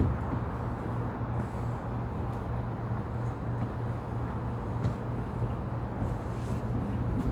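Steady outdoor ambience: a constant low hum and rumble of wind and distant traffic, with a few faint clicks.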